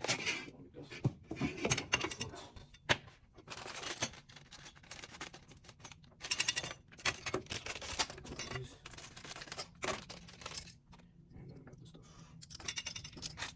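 Unboxed bicycle fender parts and their packaging being handled: irregular clicks, knocks and rustling as plastic pieces and small fittings are moved about.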